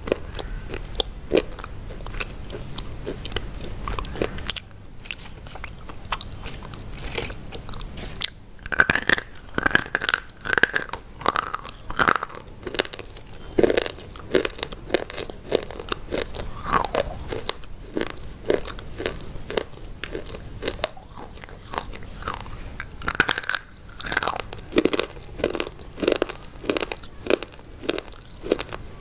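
Close-miked biting and chewing of hard, crunchy white sticks: a run of sharp crunches, densest about a third of the way in and again near the end.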